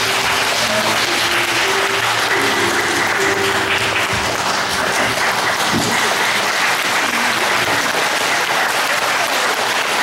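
Audience applauding steadily, with a few held musical notes lingering under the clapping for the first few seconds.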